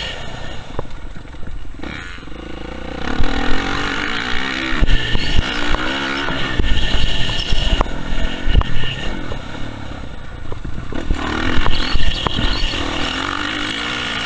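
Off-road motorcycle engine heard on board, revving up and down with the throttle as the bike rides a rough dirt motocross track, with short knocks and rattles from the bumps.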